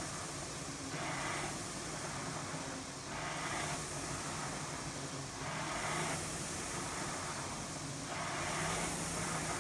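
Concept2 Model D rowing machine's air-resistance flywheel whooshing as it is rowed: a surge of air noise about every two seconds with each stroke, over a steady hiss from the spinning fan.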